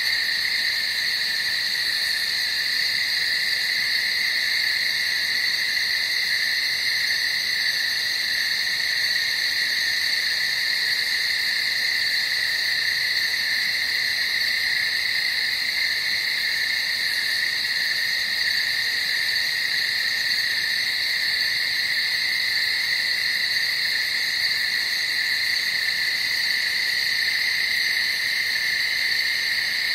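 Dense, unbroken night chorus of calling animals, heard as a steady high ringing at two pitches that never lets up.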